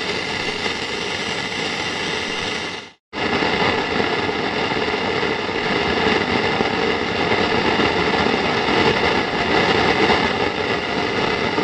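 Antique tube radio putting out loud static hiss with several steady whistling tones running through it. The sound cuts out for a moment about three seconds in, then comes back.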